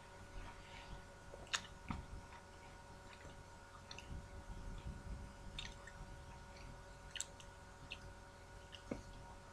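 Faint chewing of a mouthful of sushi, with scattered small wet clicks and smacks from the mouth, over a steady faint hum.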